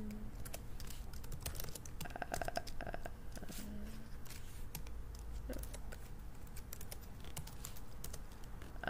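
Typing on a computer keyboard: a run of quick, irregular keystrokes entering a command line.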